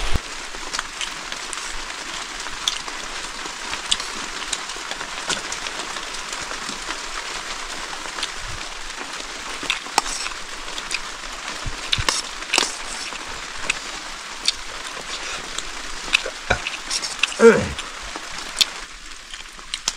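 Food sizzling in a cooking pan: a steady hiss with scattered sharp clicks and knocks. A brief falling sound about three-quarters of the way in is the loudest moment.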